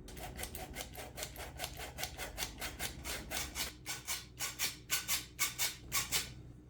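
Rhythmic back-and-forth rubbing or scraping strokes, about five a second, coming slower and louder for the last couple of seconds and stopping shortly before the end.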